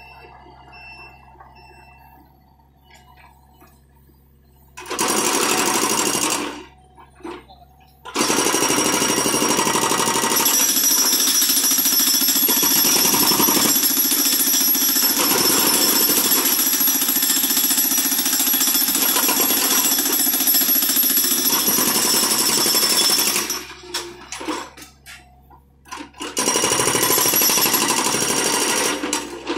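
Hydraulic breaker hammer on a John Deere 50D compact excavator pounding concrete with rapid, continuous blows. After a few quieter seconds it runs in a short burst, then a long run of about fifteen seconds, then another burst near the end.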